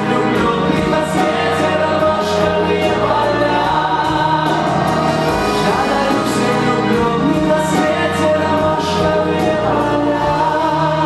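Choir singing in held, sustained chords.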